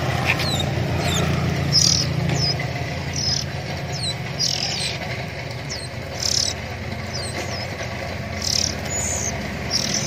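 Young oriental magpie-robins begging for food, a hissy rasping call repeated about every one to two seconds, with short falling chirps between.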